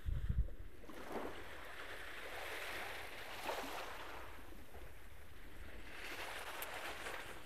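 Small sea waves washing onto a sand beach, a hushing noise that swells and fades every second or two. A brief low thump comes at the start.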